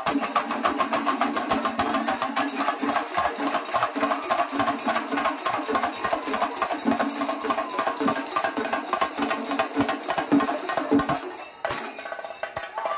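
Singari melam percussion ensemble of chenda drums and cymbals playing a fast, dense rhythm, which breaks off sharply about eleven and a half seconds in.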